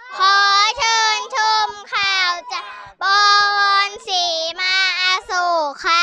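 A child singing a song in long held, high notes with short breaks between phrases, the last note sliding down near the end.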